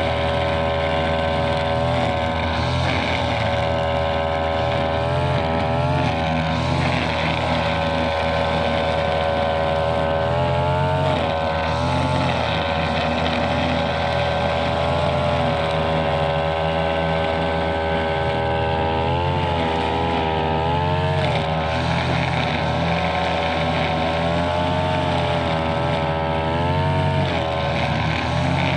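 Brush cutter engine running at high revs, its pitch sagging briefly and recovering several times as the cutting head takes load in the grass.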